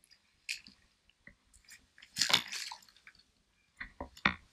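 Short, separate bursts of water splashing and sloshing right at the microphone as a hooked trout thrashes in shallow water at the bank. The loudest burst comes about two seconds in, with several smaller splashes near the end.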